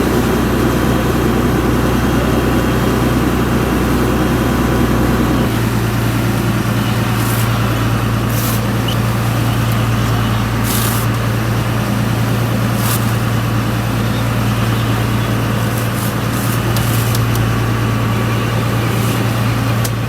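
A fishing boat's engine running steadily with a low hum. Its note shifts about five seconds in, and brief bursts of hiss come and go.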